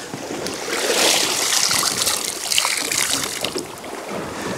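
Seawater splashing and sloshing against the side of a small boat in a choppy sea, loudest through the middle and easing off near the end.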